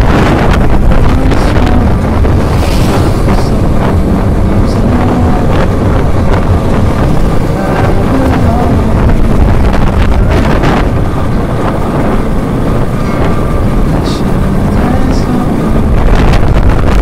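Wind rushing over the microphone of a motorbike at road speed, with the bike's engine running underneath, its pitch wavering slightly.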